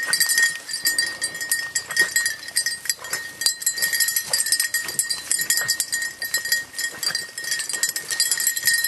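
Small bells on a pack of hunting beagles' collars, jingling steadily as the dogs work through brush, over a continuous high ringing tone.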